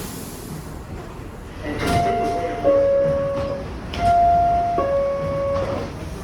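New York City subway car door chime sounding twice, each time a higher note followed by a lower one, over the rumble of the train. It is the warning that the doors are closing.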